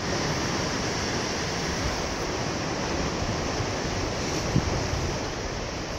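Sea waves and wind: a steady rushing noise, with wind buffeting the microphone in uneven low rumbles. A brief low thump about four and a half seconds in.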